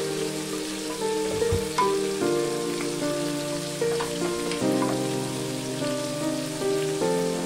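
Background music of held, slowly changing notes over a steady rain-like hiss.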